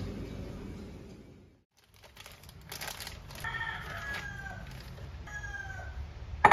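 A rooster crowing a couple of times, over the rustle of a plastic bag as flour is poured into a glass bowl. Near the end a sharp knock, a glass measuring cup set down on the wooden counter.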